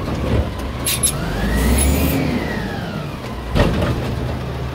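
Diesel engine of a WhiteGMC garbage truck running, revving up and settling back with a whine that rises and falls, and a sharp knock about three and a half seconds in.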